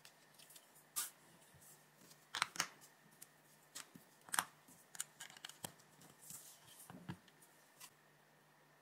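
Plastic LEGO bricks clicking and knocking against each other and on a tabletop as a BrickHeadz figure is handled and pressed onto its black baseplate. A dozen or so scattered sharp clicks, the loudest a little over two seconds in and about four and a half seconds in.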